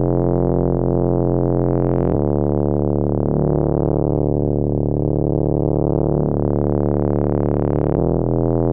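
Background music: sustained synthesizer chords held for several seconds each, changing about two seconds in and again near the end, with the brightness slowly swelling and fading.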